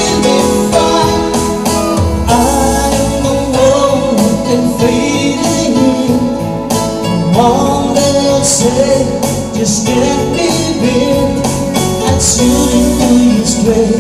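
Live band music with a man singing into a microphone over electronic keyboard and a steady beat.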